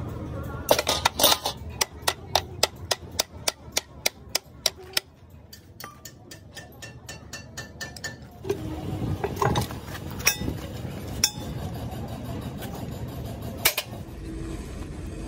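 Metal hand tools working a truck differential's carrier bearing caps loose: a quick run of sharp, evenly spaced metallic clicks, four to five a second, for the first few seconds, then scraping and handling of the heavy parts with a few single metal knocks.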